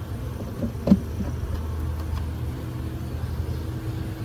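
Steady low hum of honeybees from an open hive, with a sharp wooden knock about a second in and a few lighter clicks as a comb frame is shifted across the box.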